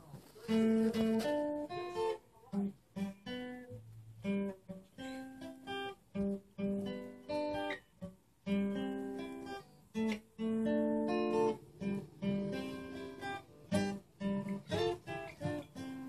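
Guitar picking a melody over chords, each note ringing and decaying, with the playing dying away near the end.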